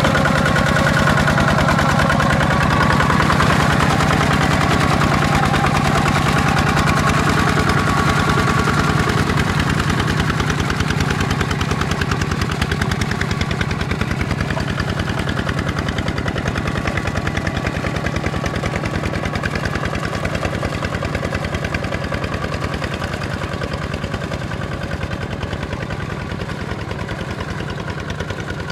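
Kubota ZT155 single-cylinder diesel engine of a two-wheel walking tractor running under load, a fast, even chugging, as it drags its cage wheels and levelling board through paddy mud. It grows gradually quieter over the second half.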